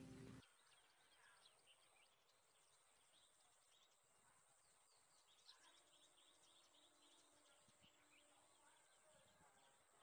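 Background music cuts off about half a second in, leaving near silence with faint outdoor bird chirps and a thin steady high tone.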